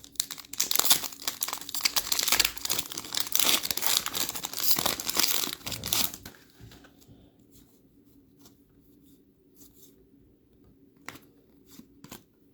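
A trading-card pack from an NBA Hoops retail box being torn open, its wrapper crinkling and rustling for about six seconds. Then it goes nearly quiet, with a few faint clicks near the end.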